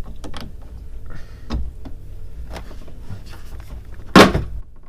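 Socket and breaker bar working on a steering wheel's centre nut: scattered metallic clicks and knocks, then one loud sharp crack about four seconds in as the nut breaks loose.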